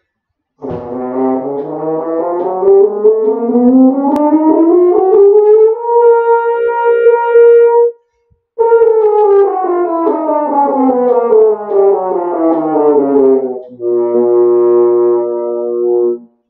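French horn playing a scale: it climbs steadily upward, holds the top note, and after a short breath comes back down, ending on a long, lower held note.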